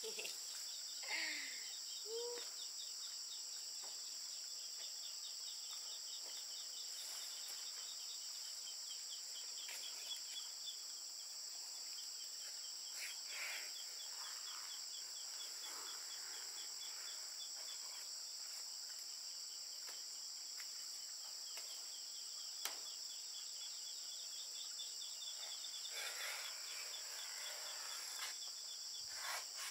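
A steady, high-pitched chorus of insects, with a fast pulsing trill that comes and goes over it. Now and then large banana leaves rustle as they are lifted and laid down, with a couple of light clicks.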